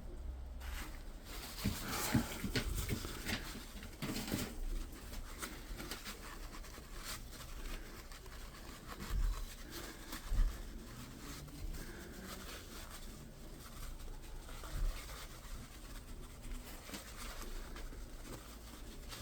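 Hand work on a Brembo brake caliper: scattered light clicks, taps and rubbing as pistons and dust seals are pressed into the caliper body, with a couple of dull low knocks about nine and ten seconds in.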